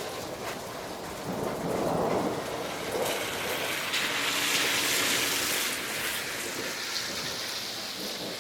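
Thunderstorm: rain falling steadily with a rumble of thunder. The hiss of the rain swells louder for a few seconds in the middle.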